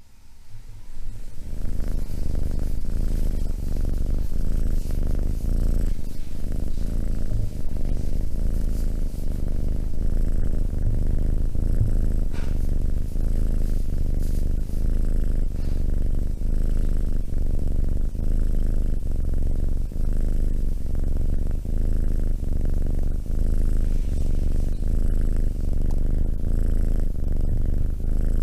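Domestic cat purring loudly and steadily in an even, repeating in-and-out rhythm, fading in over the first couple of seconds.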